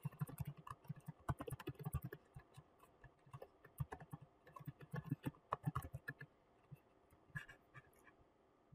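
Typing on a computer keyboard: quick, irregular key clicks as a username and password are entered, thinning out after about six seconds, with one louder click at the very end.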